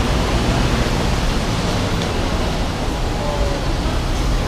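Steady roar of city street traffic beside a busy road.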